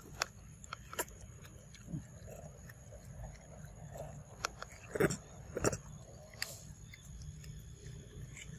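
A macaque biting and chewing a ripe mango: scattered wet smacks and clicks, with two louder ones a little past the middle.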